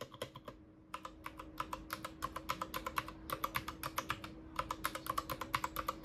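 Typing on a Royal Kludge RK61 mechanical keyboard with brown switches: a quick, uneven run of keystroke clicks, with a brief pause just before a second in.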